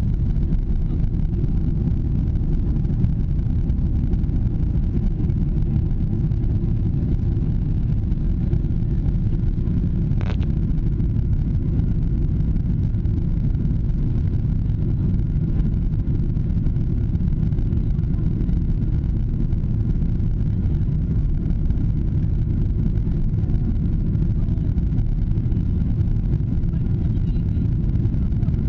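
Steady low engine and airflow noise of a jet airliner, heard inside the passenger cabin during the climb after takeoff.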